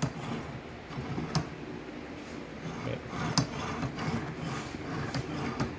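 Rebuilt Ross steering gearbox turned back and forth by hand in a bench vise: faint rubbing with a few light clicks and knocks. The gear turns smoothly, its rough spot buffed out and its slack gone.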